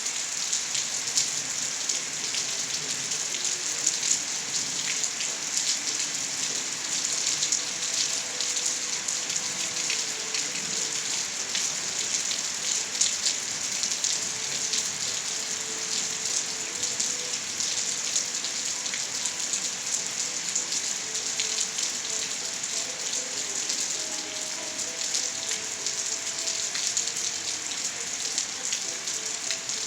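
Steady rainfall on surfaces: an even hiss of rain with many small drop ticks throughout.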